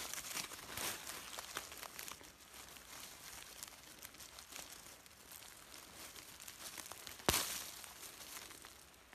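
Dry fallen leaves on the forest floor rustling and crinkling as a hand brushes through them and pulls up plants, with one sharp crack about seven seconds in.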